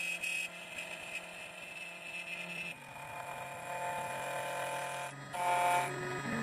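CNC key cutting machine's cutter motor running as it cuts the second side of a key blank, a steady whine whose tone shifts a few times and briefly drops out just after five seconds in.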